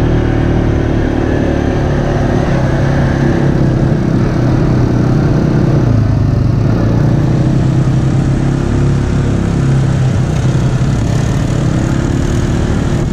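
ATV engine running steadily while riding a dirt trail, heard from on board the quad.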